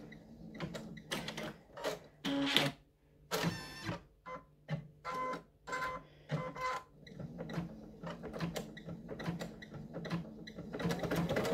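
Brother Quattro 2 6700D embroidery machine slowly sewing a bean stitch, running back and forth over the same line: an uneven run of short stitching sounds with brief pauses between them.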